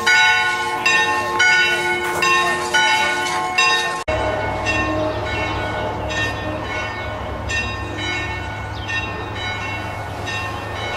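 Church bells pealing, several bells of different pitch struck in quick, even strokes. About four seconds in the sound cuts off sharply, and the bells carry on fainter over a steady low rumble.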